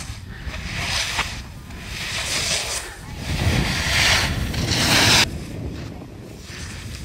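Snowboard edges carving through slushy spring snow: a hiss that swells and fades with each turn, loudest about four to five seconds in, then cutting off sharply. A low wind rumble on the microphone runs underneath.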